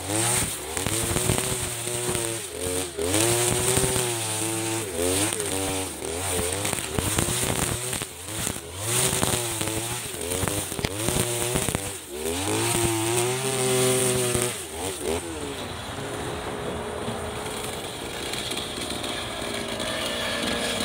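Backpack petrol brush cutter cutting grass, its engine speed rising and falling again and again as it is swung through the grass. About 15 seconds in, the engine settles to a steady, lower speed.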